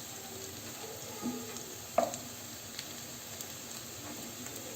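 Potato-stuffed bread rolls sizzling steadily as they fry in hot oil, with a short sharp knock about two seconds in.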